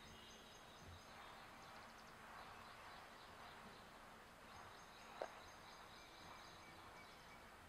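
Near silence: faint outdoor ambience with faint high chirps, likely distant birds or insects, and one short sharp sound about five seconds in.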